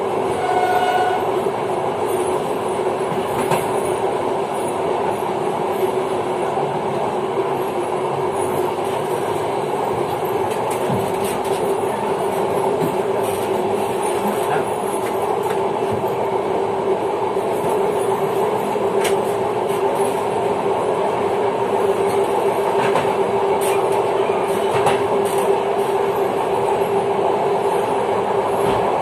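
Passenger train running steadily along the track, heard from the rear of the last carriage. There is a constant rumble with a steady hum and scattered wheel-on-rail clicks. A short pitched tone sounds about a second in.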